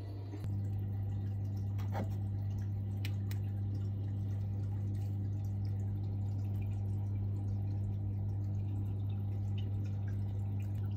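Steady low electrical hum with a fainter higher tone above it, typical of running aquarium equipment on mains power. It steps up slightly about half a second in, and a few faint water drips or clicks come a couple of seconds in.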